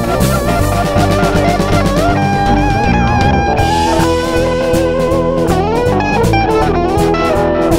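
Instrumental break of a blues-rock boogie song with guitar and a drum kit, its lead line playing held, wavering notes that bend up and down in pitch.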